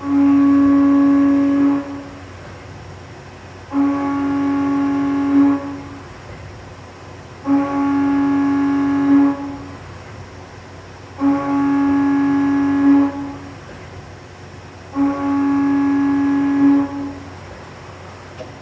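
A low buzzing tone with many overtones comes on five times, each about two seconds long and about four seconds apart, with a short jump in loudness just before each one stops. It is the abnormal noise of an NHX4000 unit.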